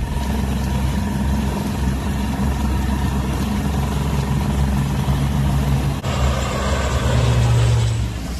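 Steady drone of low-flying C-130 Hercules four-engine turboprop transport planes passing over, the engine and propeller noise getting louder in the last two seconds.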